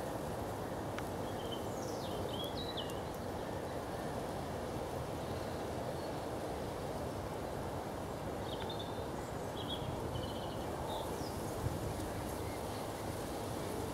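Steady outdoor background noise, mostly a low, even hiss, with faint short bird chirps about two seconds in and again between about nine and eleven seconds in.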